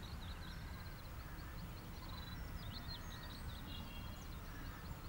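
Faint birds chirping over a low, steady background noise, in an outdoor ambience.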